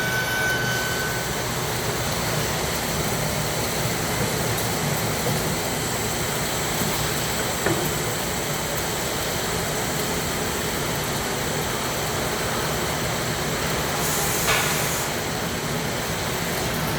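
Wood CNC drilling and processing centre running, with a steady mechanical noise throughout. There is a single click about halfway through and a short hiss near the end.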